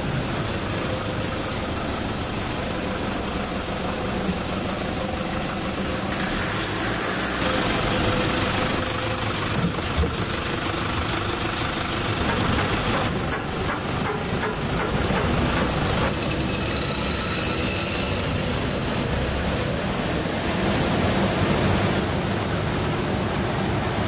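Toyota Hilux 3.0 D-4D four-cylinder turbodiesel running under test on a chassis dynamometer, its tyres spinning the steel rollers. The engine and roller noise stay loud and steady, with whining tones that change several times through the run.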